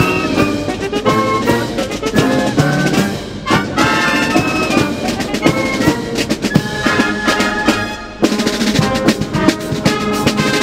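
Military marching band playing live: trumpets and trombones carrying the tune over snare drums, with piccolos. The music breaks off briefly twice, a few seconds in and again about eight seconds in.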